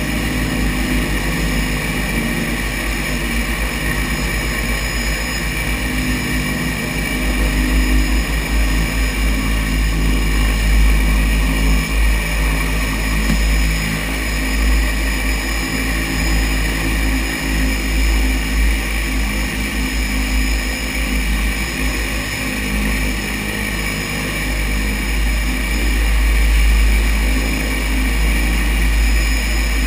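Seaplane's propeller engines running steadily while it taxis on the water, heard from the cockpit, with steady high tones over a strong low rumble.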